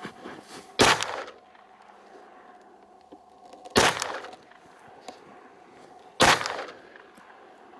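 Three pistol shots from a Zev-modified Glock, slowly spaced: about a second in, about four seconds in, and just past six seconds, each with a short ringing tail.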